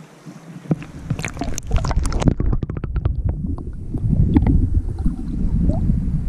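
Water splashing and crackling as a camera is pushed under the surface of a river, then a loud, muffled low rumble and gurgling from the submerged camera moving through the water.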